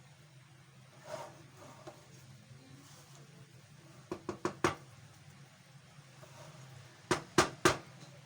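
A serving spoon knocking against the rim of the pulao pot: four quick knocks about four seconds in, then three more near the end.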